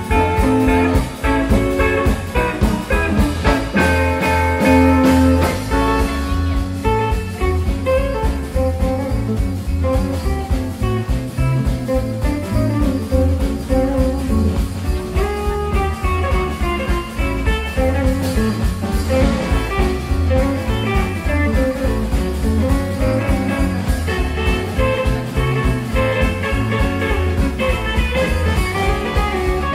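Live instrumental blues boogie from a rock band: two electric guitars playing lines over electric bass and a drum kit keeping a steady beat.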